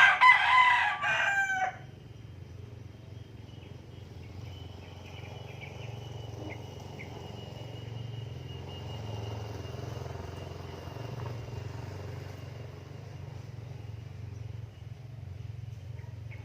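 A rooster crows once, a loud call of about a second and a half that falls in pitch at the end. A steady low hum follows.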